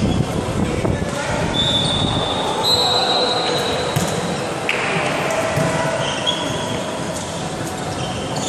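Rubber-soled court shoes squeaking on an indoor sports-hall floor as volleyball players move, several drawn-out high squeals of about a second each, with the ball struck once about halfway through for the serve. The hall adds echo.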